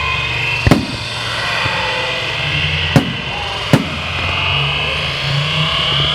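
Fireworks exploding: three sharp bangs, the first about a second in and two more close together around the middle, over a continuous loud background din.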